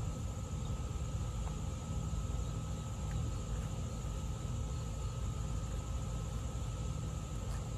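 A steady mechanical hum over a low rumble, with a few constant high-pitched tones held throughout and no change in level.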